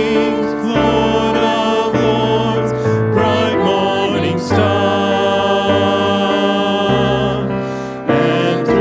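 Worship music: several voices singing sustained, held notes over keyboard or piano accompaniment, with chord changes every second or so.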